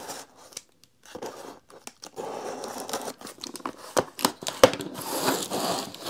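Utility knife slicing through packing tape on a cardboard box, with the scrape and rustle of the cardboard and a few sharp clicks near the end.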